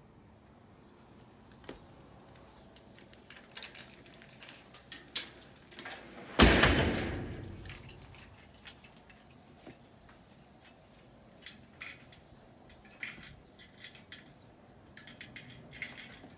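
A single loud bang about six and a half seconds in, ringing on and fading over a second or so, followed by scattered light clicks and knocks.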